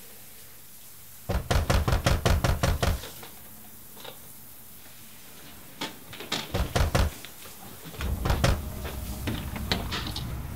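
Rapid, impatient knocking on a motel room door in three bouts: a hard run of knocks about a second in, a shorter bout midway, and more knocking toward the end.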